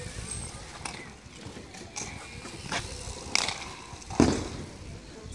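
Hardcourt bike polo play: scattered sharp clacks and knocks of mallets, ball and bicycles, the loudest a dull thump about four seconds in, with bicycle freewheel ticking underneath.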